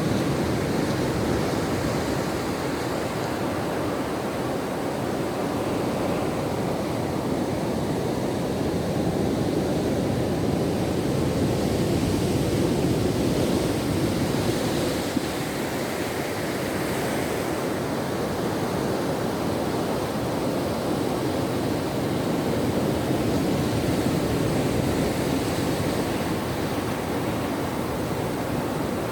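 Ocean waves washing onto a shore: a continuous rush of surf that swells and eases slowly over several seconds.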